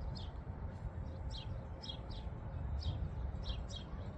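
Small birds chirping: short, high, downward-sweeping chirps repeating irregularly a few times a second, over a steady low rumble.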